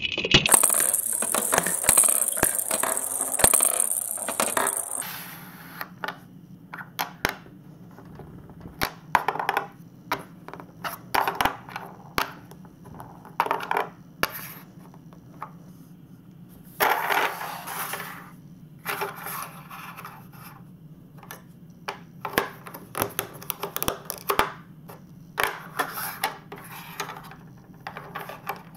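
A plastic marble-run ball rolling round a plastic bowl for about the first five seconds. After that come scattered plastic clicks and knocks as marble-run track pieces are handled and set in place.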